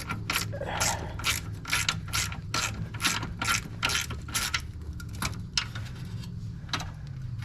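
Hand ratchet wrench clicking as it is swung back and forth on a bolt, about two to three clicks a second, with a short pause near the end.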